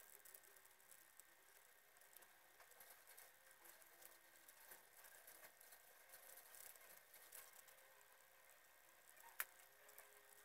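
Near silence: faint steady hiss with scattered small ticks and one sharper click about nine seconds in.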